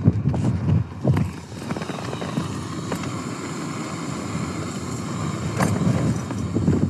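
Wind buffeting the microphone in gusts for the first couple of seconds, then the steady roaring hiss of a canister-top gas stove burning under a cooking pot.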